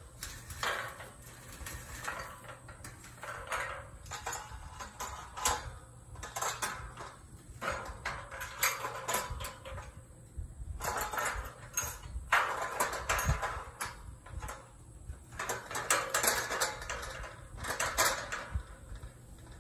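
Galvanized steel corral panels clanking and rattling as one is swung and fitted against another, with scattered metallic knocks and scrapes.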